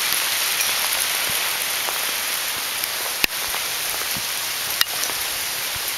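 Hail coming down steadily, a dense hiss of small hailstones pelting the ground, with two sharp clicks about three and five seconds in.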